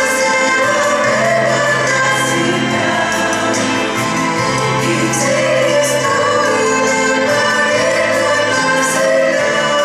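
A small group of women singing a Russian Christian song together into microphones, over an accompaniment of held low notes.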